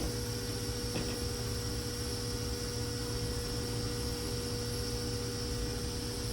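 Hot air rework station blowing steadily, a constant rush of air with a low electrical hum, while it heats an FPC connector off a circuit board.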